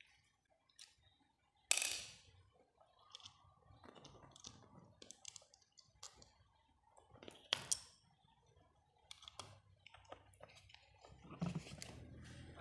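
Scattered clicks and clinks of a screwdriver, screws and metal parts as an electric fan's motor is taken apart and its rotor pulled out, with two louder clinks, one about two seconds in and one a little past the middle.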